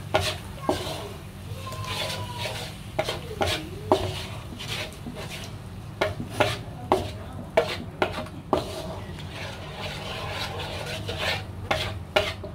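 Wooden spatula stirring and scraping around a non-stick wok, with frequent sharp knocks as it strikes the pan, over a light sizzle of garlic, ginger and dried chillies frying in oil with oyster sauce.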